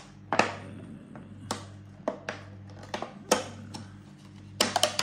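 Plastic sweet box and wrappers being handled and opened: scattered, irregular plastic clicks and crinkles, the loudest a little past three seconds in and a cluster near the end, over a low steady hum.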